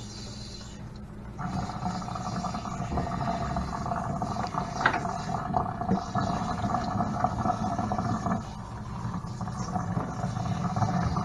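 Water from a kitchen sink's pull-out sprayer running onto wet dreadlocks while a hand scrubs the shampooed scalp, a steady rushing that starts about a second and a half in.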